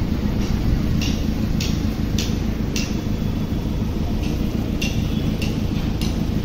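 Vehicle engine running steadily while driving, with a sharp tick repeating about twice a second.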